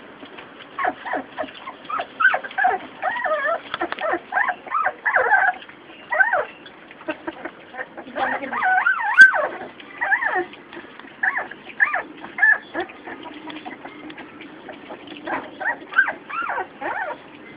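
English setter puppies whining and squealing in many short, high, wavering calls as the litter jostles around a shared food dish, with a dense flurry of calls about halfway through.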